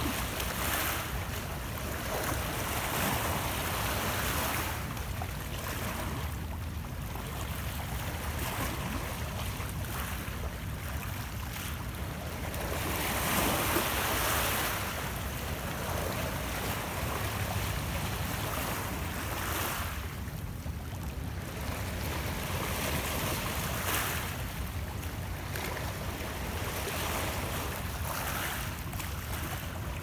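Small Lake Ontario waves lapping and washing against shoreline rocks, swelling and ebbing every few seconds, over a steady low rumble.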